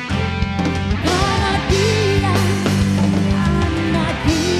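Live house band playing rock-style music, a wavering melody line over steady sustained bass notes.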